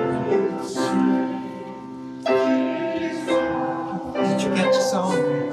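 A hymn played on piano in sustained chords, a new chord struck about once a second, with congregational singing.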